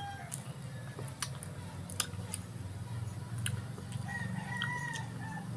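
A rooster crows once about four seconds in, a single held call of a second or so. Scattered sharp clicks from handling and eating food are heard throughout, over a steady low hum.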